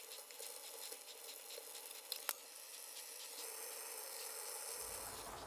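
Faint, high-pitched crackling patter of a pot of ramen boiling on a gas burner, sped up to ten times normal speed, with one sharp click a little over two seconds in.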